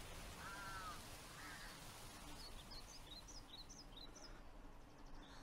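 Faint birdsong from the anime episode's soundtrack: a short call about half a second in, then a run of quick high chirps from about two seconds in.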